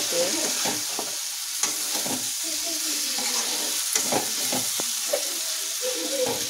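Paneer cubes being stirred into a sizzling tomato-onion masala in a kadai, with a steady sizzle under it. A steel spatula scrapes and clinks against the pan several times.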